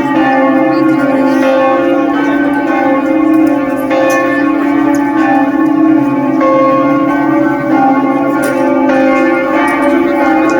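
Church bells of the Basilica of Our Lady of the Rosary in Fátima ringing, several bells struck again and again, each tone ringing on under the next.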